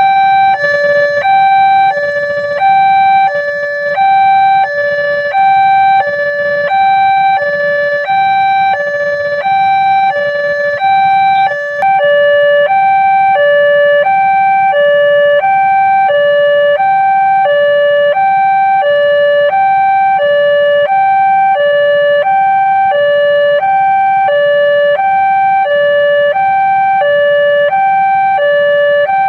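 Railway level-crossing warning alarm sounding: an electronic two-tone signal that alternates between a lower and a higher pitch, about one of each per second, warning that a train is approaching.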